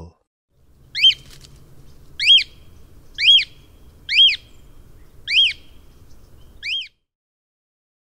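Cockatiel calling: six short calls, each rising then falling in pitch, about one a second.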